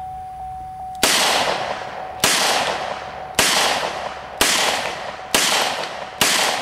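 .38 Special handgun fired six times in a row, about one shot a second, each a sharp crack with a ringing tail.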